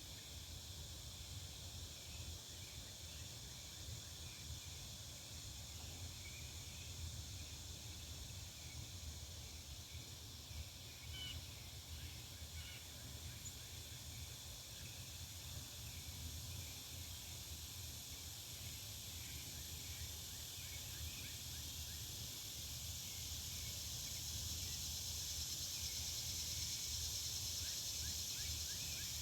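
Back-yard ambience of a residential neighbourhood: a steady high hiss of insects over a low rumble of distant traffic, with faint bird chirps now and then. The hiss grows louder near the end.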